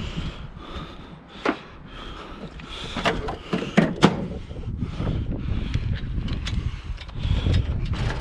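A few sharp knocks and clanks, the loudest bunched about three to four seconds in, from handling and cutting into a scrapped washing machine.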